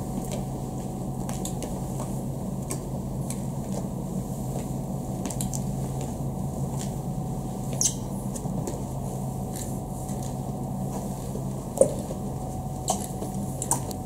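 Flat mop sliding over floor tiles, with a few sharp taps over a steady low hum.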